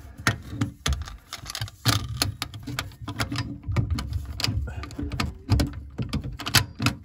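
Ridgid telescoping basin wrench being worked up onto a faucet mounting nut: irregular metal clicks and knocks as the tool bumps against the fittings and its jaw is set, over a low handling rumble.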